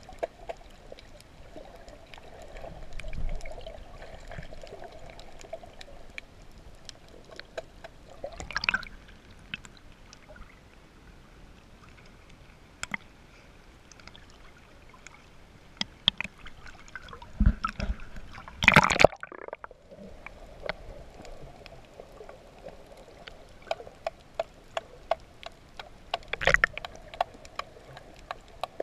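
Water sloshing and gurgling around a camera moved through the water at and just below the surface, with scattered sharp clicks and a few louder splashes, the loudest about two-thirds of the way in.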